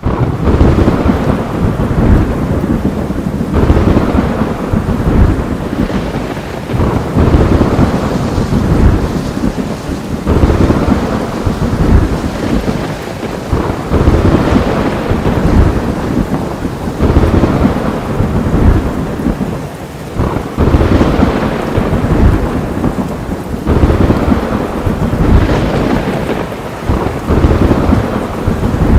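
Heavy rain pouring with thunder rumbling throughout, the storm swelling in waves every few seconds, with low rolling rumbles under a steady hiss of rain.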